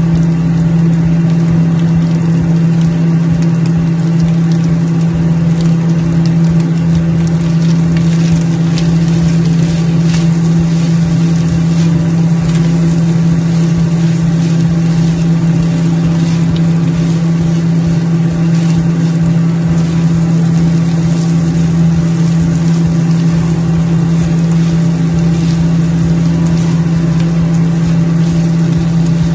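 A loud, steady mechanical hum with one strong low tone that never changes, under the faint scraping of a spatula stirring green beans and mince in a non-stick wok.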